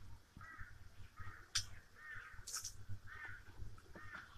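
A bird calling over and over in a steady series of short calls, about five in all, with two sharp clicks near the middle.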